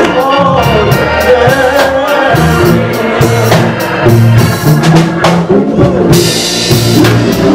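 Live gospel music from a small church band with drum kit and keyboard. A man's singing voice carries the melody for the first couple of seconds, then the band plays on with steady low notes and drum hits. Cymbals ring out about six seconds in.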